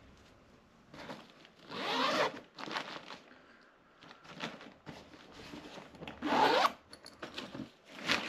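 Zipper on a large fabric Cabela's bag being pulled in two long strokes, about two seconds in and again about six seconds in, with rustling of the fabric and small clicks between.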